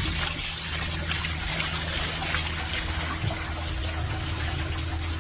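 Rainwater running and splashing steadily, a dense trickling hiss over a low steady hum; the water sound cuts off abruptly near the end.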